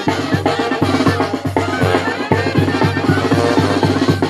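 Live Mexican brass band playing a dance tune: sousaphone, trombones, trumpets and clarinet over a bass drum and snare keeping a steady beat of about two and a half strokes a second.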